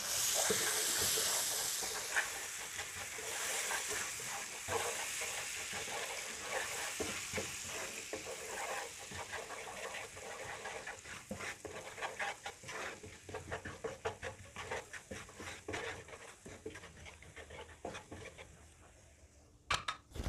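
Hot chili oil and soy-sauce mixture sizzling in a frying pan while a wooden spatula stirs it, with repeated scraping and tapping strokes against the pan. The sizzle is strongest at the start and dies away steadily, nearly gone by the end.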